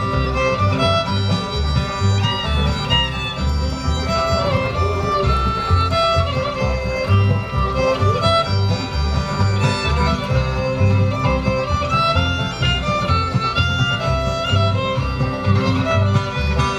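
Bluegrass instrumental with a fiddle playing the melody over a guitar's steady alternating bass-and-strum rhythm.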